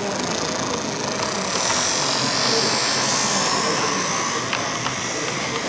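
Large-scale model tram running along its track, its small electric motor and wheels giving a steady whirring hiss that swells for a couple of seconds in the middle. Murmur of voices in the exhibition hall underneath.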